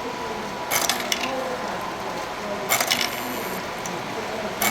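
Metallic clinking rattles from a miniature railroad's barrel-rolling accessory, in three short bursts about two seconds apart.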